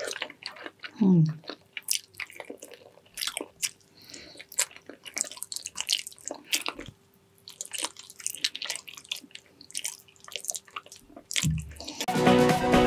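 Close-miked eating of soft, gelatinous braised pig's trotters: wet chewing and many short lip-smacking clicks, with a brief voiced hum falling in pitch about a second in. Electronic dance music starts near the end.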